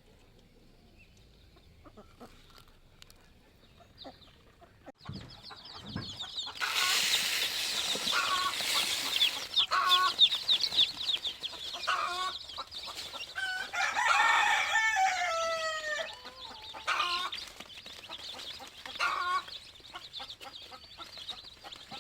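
A flock of young chicks peeping in a dense, high chorus that starts about six seconds in, after a couple of low knocks, with lower clucking calls mixed in, one of them drawn out and falling in pitch near the middle.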